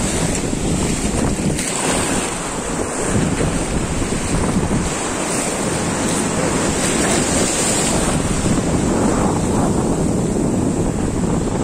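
Sea waves washing up the sand and foaming in the shallows, with wind buffeting the phone microphone.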